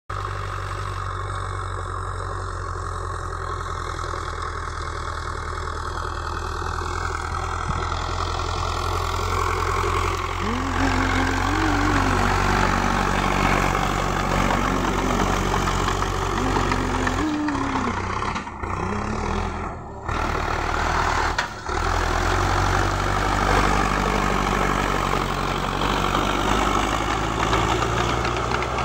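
Sonalika DI-55 RX tractor's diesel engine running steadily under load as it drives a rotavator through the soil. It grows louder about a third of the way in as the tractor comes close, and the sound drops out briefly a few times later on.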